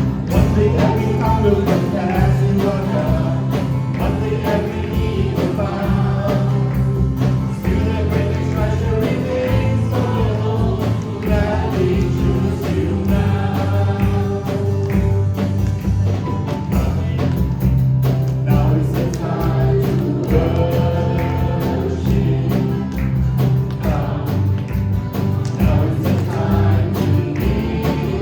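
Congregational worship song: a choir and worship singers singing over a live band with bass, guitar and a steady beat.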